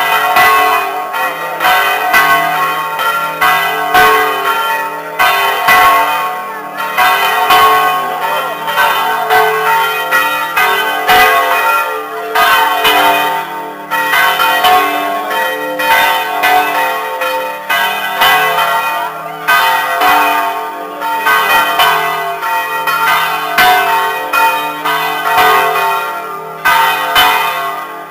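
Church bells ringing, struck about once a second, each stroke ringing on into the next.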